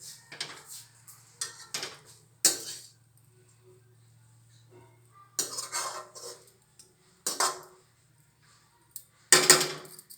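Metal utensil clattering and scraping against a cooking pan in a series of separate strokes, the loudest cluster near the end.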